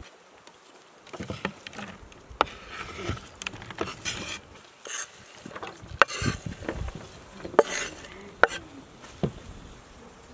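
Diced onion scraped off a wooden cutting board into a metal tray: rustling slides of onion pieces, broken by a few sharp knocks of the board and knife against the tray's rim.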